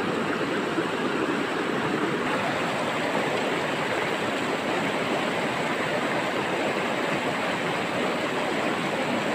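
A shallow, rocky river rushing over boulders in rapids: a steady, unbroken sound of moving water.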